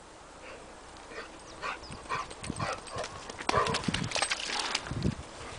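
A Weimaraner's paws galloping on a wet, muddy farm track, the quick footfalls getting louder as the dog runs up close.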